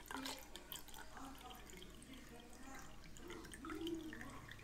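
Faint water dripping and trickling into a sink, in scattered small drips.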